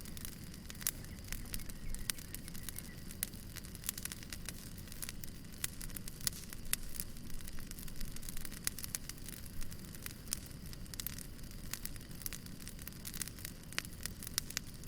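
Fire crackling: frequent irregular sharp pops and snaps over a steady low rumble of flames.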